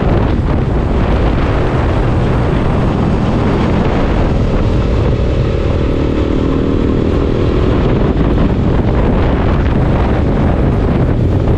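Wind rushing over the microphone on a moving motorcycle, with the engine running beneath it. A pitched engine note stands out for a few seconds in the middle.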